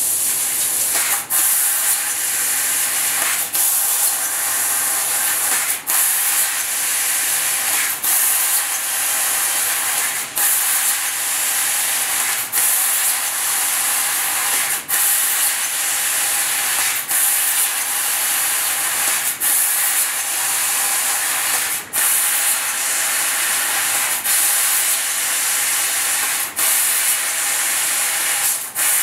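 6 kW fiber laser cutting head cutting 8 mm brass plate: a steady, high hiss of the assist-gas jet blowing through the cut. The hiss breaks off briefly about every two seconds as one hole is finished and the next begins.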